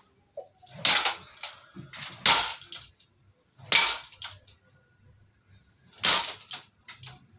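A fishing rod whipped against a man's bare back, four sharp smacks spaced about one to two and a half seconds apart.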